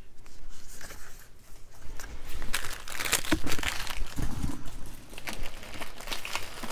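Product packaging being handled, crinkling and rustling with irregular taps and clicks, busier from about two seconds in.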